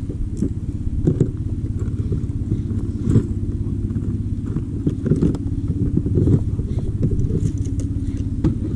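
Small boat's engine running steadily at a low, even pitch, with a few short knocks throughout.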